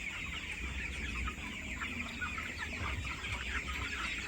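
A flock of chickens calling all at once: many short, high, overlapping cheeps and clucks forming a steady chatter.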